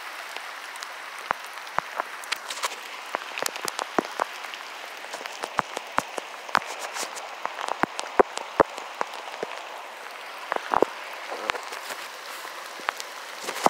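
Footsteps crunching irregularly through dry leaf litter and grass, over the steady rush of a creek.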